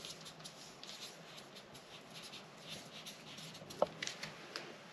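Faint scratching and light rustling of a paper sewing pattern being handled on a work table, with one sharper click a little before four seconds in.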